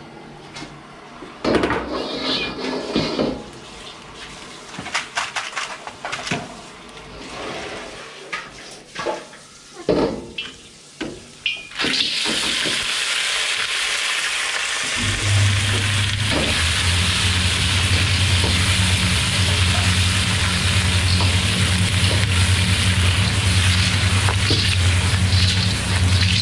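Clatter and knocks of a steel wok ladle against pans and pots, then from about twelve seconds in a loud, steady sizzle of clams stir-frying in a hot wok. A few seconds later a steady low hum joins it.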